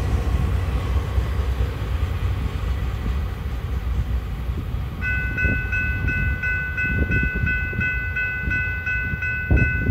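Low rumble of the last cars of a container freight train rolling away over the rails, with a few dull wheel knocks. About halfway through, a grade-crossing bell starts dinging rapidly and evenly.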